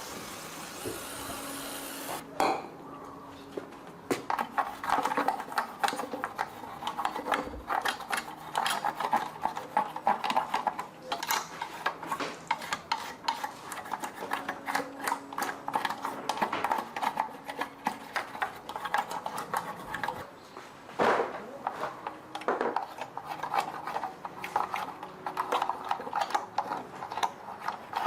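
A hiss for about the first two seconds, then rapid, irregular metallic scraping and clinking, like metal being scraped or scrubbed by hand.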